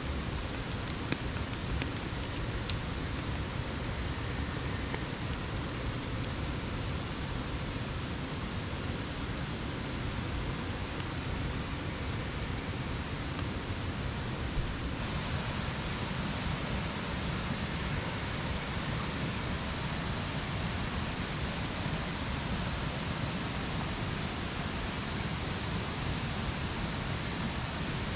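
Steady rush of a flowing stream, an even hiss without pauses. A few light clicks near the start from handling seasoning containers.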